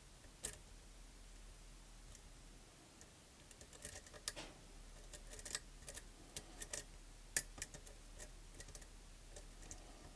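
Faint, irregular small clicks and ticks of a lock pick and tension wrench working the pins inside a pin-tumbler lock, with a few sharper clicks scattered through.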